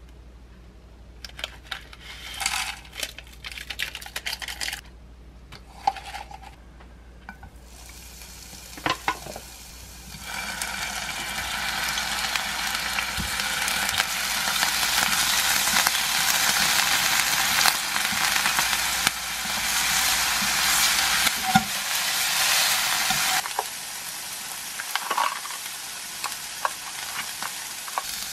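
Packet rustling and light clicks at first, then shrimp and minced garlic frying in olive oil in a pan: a steady sizzle for about a dozen seconds. It gives way to quieter handling clicks near the end.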